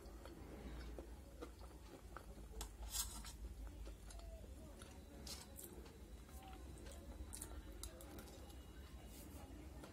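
Someone chewing macaroni pasta, with soft mouth sounds and scattered short clicks and scrapes as a steel spoon scoops pasta from a steel plate; the loudest click comes about three seconds in.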